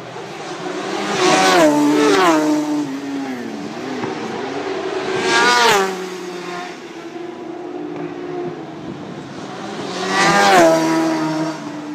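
Racing motorcycles passing at speed one after another. Each engine note swells as the bike nears and drops in pitch as it goes by: two close together near the start, one about halfway through and one near the end.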